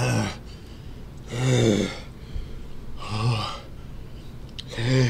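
A man letting out four short, breathy, pained groans about a second and a half apart, his mouth burning from the heat of a super-hot Carolina Reaper chocolate bar.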